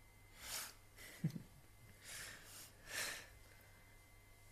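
Two men laughing softly through the nose: a few short, breathy puffs of breath. There is one brief low chuckle about a second in.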